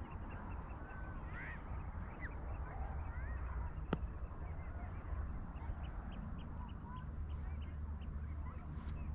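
Many birds calling at once, ducks and geese among them: a busy scatter of short calls and chirps over a steady low rumble. A single sharp click comes about four seconds in.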